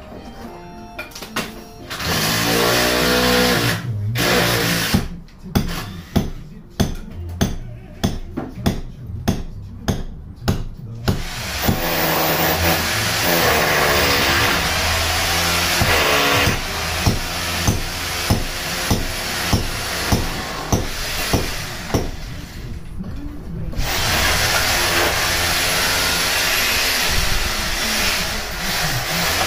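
Power tool running against brickwork in long stretches, its pitch wavering as it bites, with a run of hammer blows on the brick about two a second between about five and eleven seconds in.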